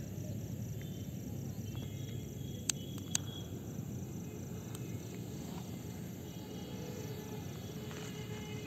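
Two sharp clicks about three seconds in as a jet-flame torch lighter is sparked, over a steady background of night insects chirping.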